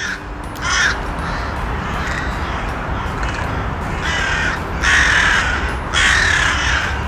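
Crow cawing: a couple of caws near the start, then a run of three caws from about four seconds in, over a steady background hiss.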